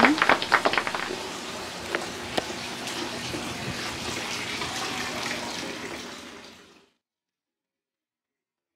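Steady rushing, splashing noise like running water, with a couple of faint clicks about two seconds in, fading out near six and a half seconds and then cutting to silence.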